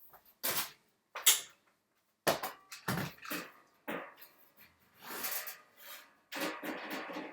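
Irregular knocks, clicks and scrapes as the back panel of a Korg Triton Extreme keyboard is handled and taken off. The sharp knocks come in the first half, and longer scraping stretches follow in the second half.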